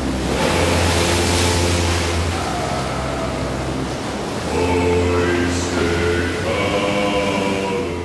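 Background music of choir-like voices holding chords that change about every two seconds over a steady low bass note, with a steady rush of surf and sea noise beneath.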